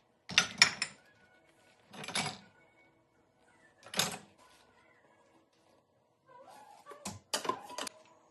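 Dishes clattering against the dishwasher racks in four short bursts as they are loaded, over faint background music.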